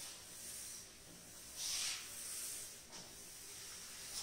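Rubbing strokes on a chalkboard: a few short scratchy hisses, the longest and loudest about one and a half seconds in.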